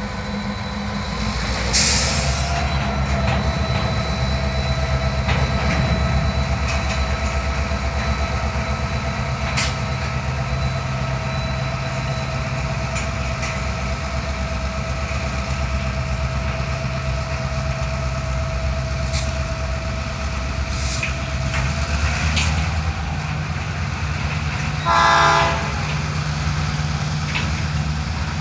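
CN freight train of hopper cars and boxcars rolling past: a steady rumble and clatter of wheels over the rail joints. A sharp high screech comes about two seconds in, and a thin steady squeal runs through most of the middle. A short horn blast sounds near the end.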